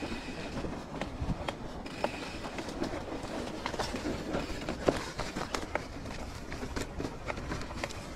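Mountain bike rolling over a rough dirt trail: steady tyre and rolling noise with frequent sharp knocks and rattles from the bike as it goes over bumps.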